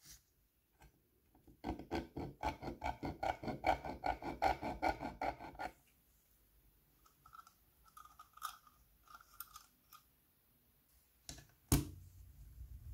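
A hand tool scraping at the signal lamp's steel housing and brass contact strip, in a quick run of rasping strokes for about four seconds. Then come a few faint small metallic clinks, and a single sharp knock near the end.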